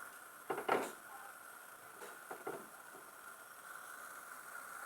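Pancake frying in a pan: a faint, steady sizzle, with two brief louder handling noises, one under a second in and one about two and a half seconds in.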